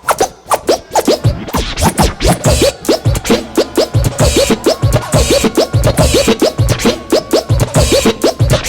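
A DJ scratching a vinyl record on a turntable, with quick back-and-forth pitch sweeps several times a second, over a hip hop beat whose kick drum comes in about a second in.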